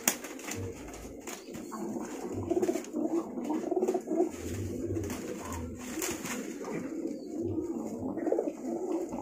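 Domestic pigeons cooing over and over in low warbling phrases, with scattered clicks and rustling from a woven bamboo basket as a bird is handled.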